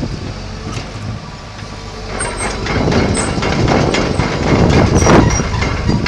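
Komatsu PC128US-2 excavator's diesel engine running while the machine travels on its tracks over concrete, with rattling track clanks and short high squeaks. It gets louder about two seconds in.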